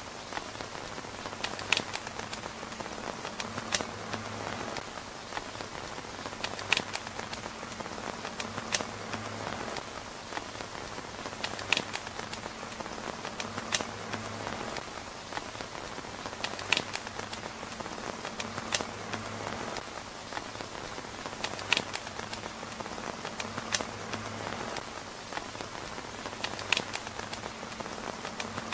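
Steady rain pattering on a tent roof, with sharp clicks every two to three seconds.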